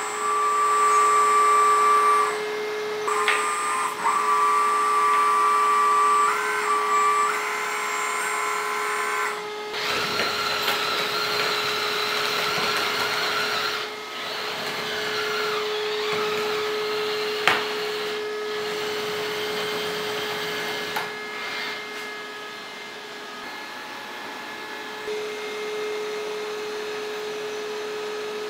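Electric hydraulic pump of a 1/14 scale RC hydraulic excavator running with a steady whine, with higher tones that step and shift as the hydraulic valves work the grab. There is a single sharp click about two-thirds of the way through.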